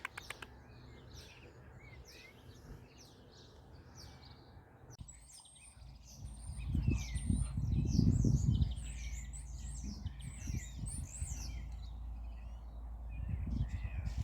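Several wild birds chirping and singing, many short calls overlapping. From about six seconds in, a low rumble on the microphone, like wind or handling noise, joins them and becomes the loudest sound.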